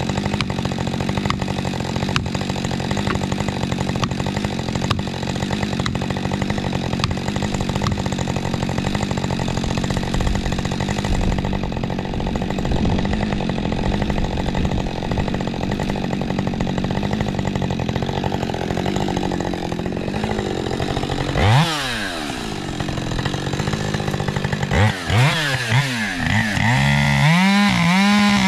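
Husqvarna 550 XP Mark II two-stroke chainsaw held at full throttle, cutting through spruce, for about twenty seconds. The revs then drop sharply to a lower, quieter run, and from near the end it is revved up and down in quick blips before being held at full throttle again.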